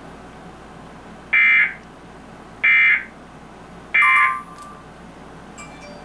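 Emergency Alert System end-of-message signal: three short, identical screeching digital data bursts about 1.3 seconds apart, played through a television's speaker, marking the end of the Amber Alert.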